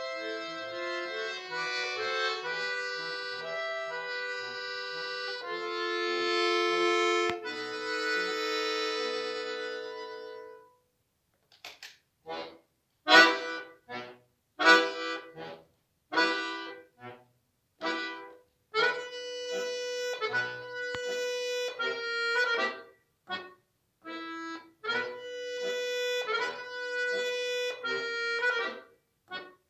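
Solo button accordion playing. It holds sustained chords for about ten seconds, falls silent briefly, then plays short, detached chords with some longer held notes between them.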